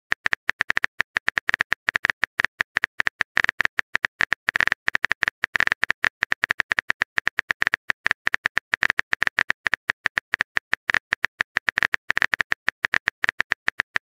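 Rapid, uneven clicking of a phone keyboard typing sound effect, many short bright taps a second, as a chat message is typed out.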